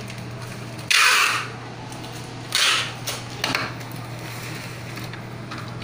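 Packing tape pulled off a roll in two short strips, one about a second in and a shorter one near the middle, with a few light clicks after, over a steady low hum.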